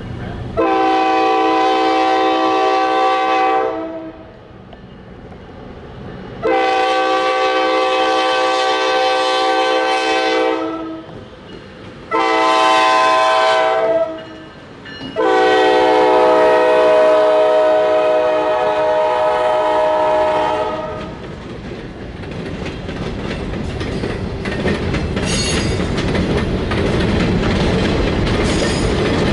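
Diesel locomotive air horn sounding four blasts, long, long, short, long: the standard grade-crossing warning. The train then rolls through with a rising rumble and wheels clicking over the rail joints.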